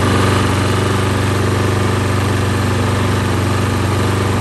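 Toro Recycler lawn mower's single-cylinder Briggs & Stratton engine running steadily at a constant speed on its newly replaced carburetor, heard close up at the carburetor and governor linkage.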